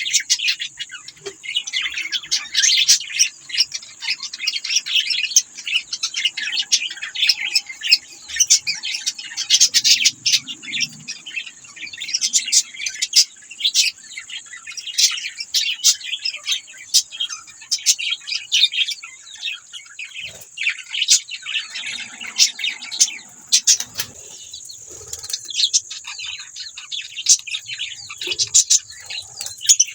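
A flock of budgerigars chattering: many rapid, overlapping chirps and warbles, thinning briefly about three quarters of the way through, over a steady high-pitched hiss.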